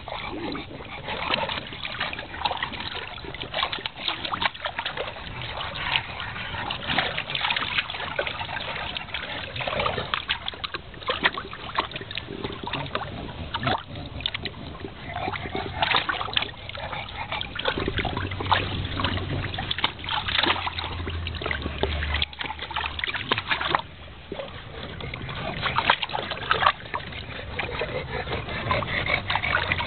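Shallow water splashing and sloshing in a plastic kiddie pool as bulldog puppies paddle and wade about in it, a busy run of small irregular splashes.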